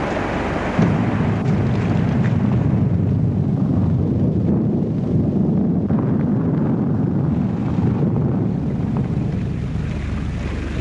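Thunder: a long, low rumble that starts suddenly about a second in and rolls on for several seconds before easing off.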